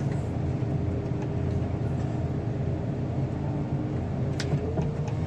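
Portable car crusher's engine running steadily, a constant drone with a faint steady hum over it.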